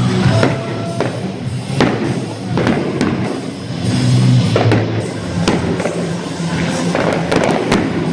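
Fireworks going off in a rapid string of sharp bangs and cracks, with a quick cluster near the end, over loud music with a steady beat.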